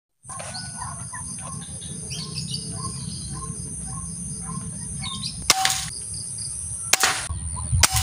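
Birds calling over a steady high insect buzz, with one short call repeated at an even pace. Two sharp cracks, the loudest sounds, come past the middle and again about a second and a half later.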